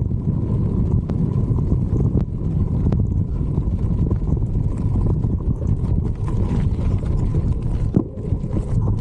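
Heavy wind rumble on the microphone as a mountain bike rolls over rocky desert ground, with scattered clicks and rattles from the tyres and bike.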